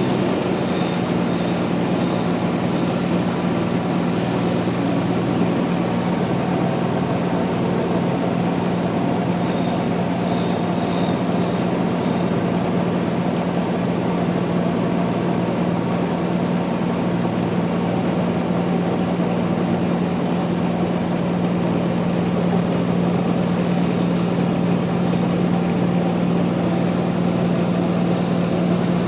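Sawmill machinery running continuously: a loud, steady motor drone with a constant low hum and a dense mechanical whir, unchanging throughout.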